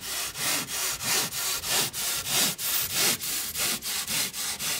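Handsaw cutting through the neck of a rigid foam taxidermy coyote form: quick back-and-forth rasping strokes, about three a second.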